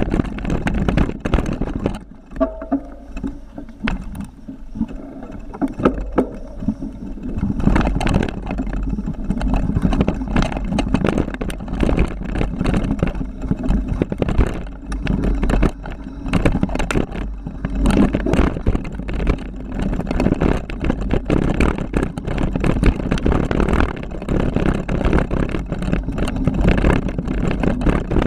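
Wind buffeting an action camera's microphone during a fast downhill mountain-bike descent, with constant rattling and knocks as the bike jolts over rough trail. It eases off for a few seconds near the start, then picks up again.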